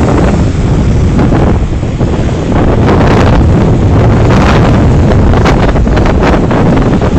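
Strong wind buffeting the microphone in loud gusts, a heavy low noise that swells and eases several times.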